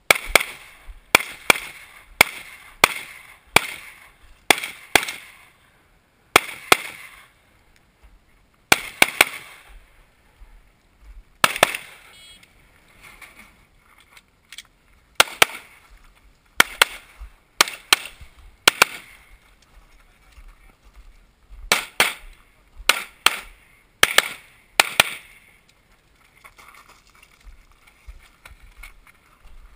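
Limited-division competition pistols firing in quick pairs about a third of a second apart, with pauses of one to a few seconds between pairs as the shooter moves through the stage, each shot with a short echo.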